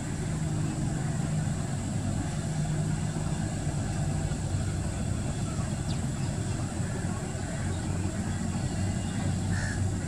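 Steady low droning hum over a constant background haze, with a faint short chirp near the end.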